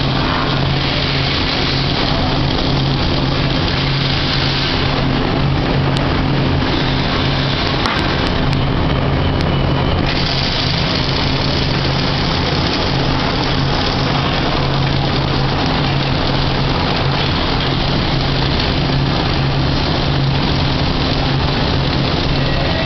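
Flux-cored wire welding arc crackling steadily, over a constant low hum.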